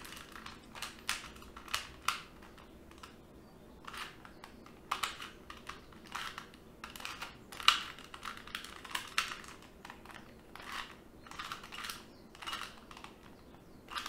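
2x2 Rubik's Cube turned by hand: irregular clusters of quick plastic clicks as the layers are twisted, undoing a corner-swap algorithm to bring the cube back to its solved state.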